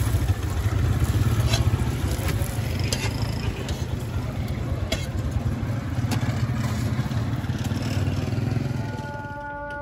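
Steady low rumble of an idling motor vehicle engine, with scattered short metal clinks and scrapes. Near the end the rumble drops away and a cat meows once, falling in pitch.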